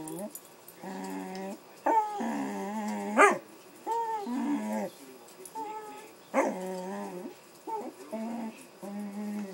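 Dog vocalizing in a string of whines and drawn-out moaning cries, with a few short yelps that rise steeply in pitch.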